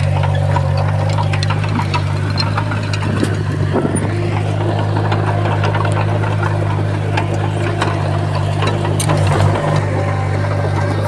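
Heavy earthmoving machine's diesel engine running steadily under a low drone, with scattered metallic clanks and knocks.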